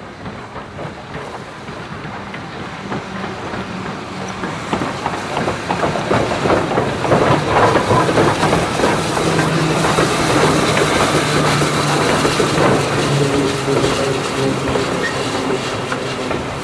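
Steam-hauled train passing close by, growing louder as it nears, its wheels clattering over the rail joints, with a steady squeal in the later part as it runs into the station.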